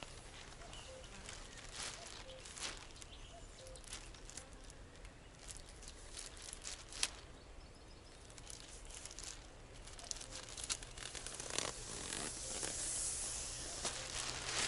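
A thin black plastic garbage bag rustling and crinkling in irregular crackles as it is pulled open and spread out by hand.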